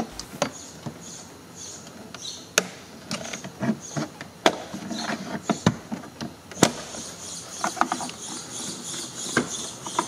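Plastic trim clips clicking and snapping as a plastic pry tool works the lower B-pillar trim panel of a 2012 Dodge Journey loose, with several sharp clicks spread through and rustling of the plastic panel between them.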